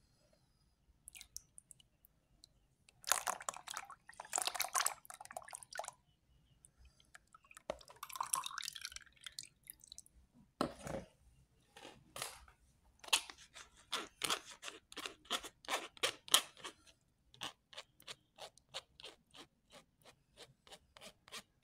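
Thick coconut-milk batter pouring and splashing through a wire mesh strainer into a plastic bowl. From about halfway on, a plastic spoon scrapes and presses the lumps through the mesh in quick repeated strokes, about two or three a second.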